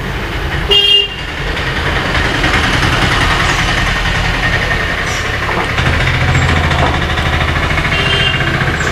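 Road traffic noise with short vehicle horn toots, one about a second in and another near the end.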